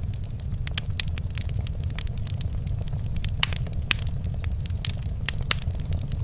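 Wood fire crackling in a fireplace: irregular sharp pops and snaps, a few louder ones past the middle, over a low steady rumble.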